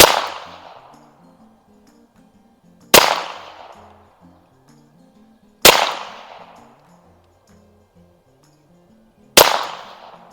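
Four single shots from an AMT Lightning .22 LR semi-automatic target pistol, a few seconds apart. Each is a sharp crack with a ringing tail of about a second. The pistol is cycling without jamming, and faint background music plays underneath.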